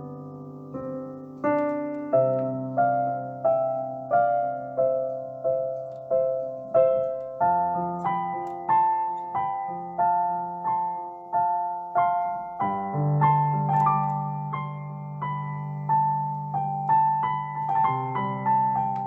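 Solo piano playing a slow, gentle melody: single struck notes, each fading away, over low notes that change every few seconds.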